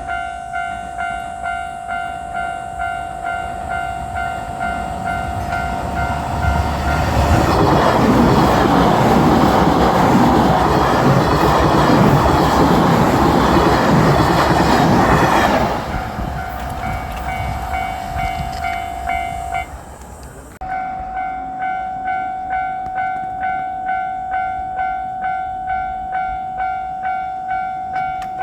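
Japanese level-crossing warning bell ringing in an even, repeating clang, about one and a half strikes a second. A JR Shikoku 8000 series electric train passes for about eight seconds, its loud rumble and wheel noise drowning the bell. After the train has gone the bell keeps ringing, breaking off for about half a second once.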